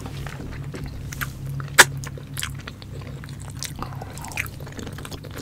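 Close-miked chewing and biting of pork adobo and boiled egg, with many short, sharp mouth clicks. The loudest click comes just under two seconds in.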